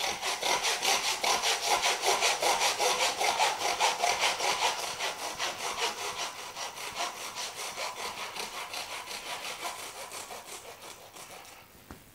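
Butcher's hand bone saw cutting lengthwise down through a ram's backbone, in fast, even back-and-forth strokes. The strokes are loudest in the first half, grow quieter through the second half and stop just before the end, followed by a single click.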